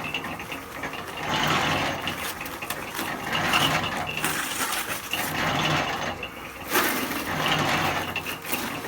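Concrete mixer drum turning while a bag of concrete mix is poured into it, the gravelly mix rattling and tumbling against the drum in swells about once a second as the drum rotates.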